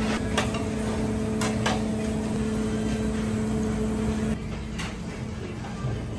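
A steady mechanical hum that cuts off suddenly about four seconds in, with a few sharp clicks or clinks scattered through.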